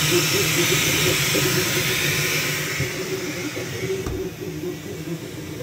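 FLSUN T1 Pro delta 3D printer running a print: its CPAP part-cooling blower gives a loud hiss over the motors' whir, which shifts in pitch as the effector moves. About four seconds in there is a soft thump as the enclosure's glass door shuts, and the hiss becomes much quieter.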